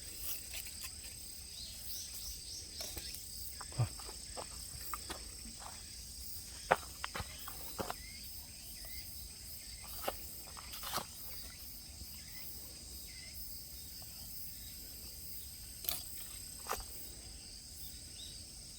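Steady high-pitched insect chorus, two constant trilling tones held throughout, with scattered sharp clicks and snaps, the loudest about a third of the way in.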